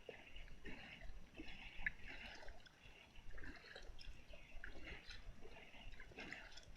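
Water lapping and dripping against a kayak's hull in small irregular splashes, fairly quiet.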